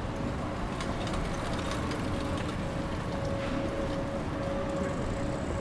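A steady hum over a continuous background noise, with a few light clicks in the first couple of seconds and a faint high whine coming in near the end.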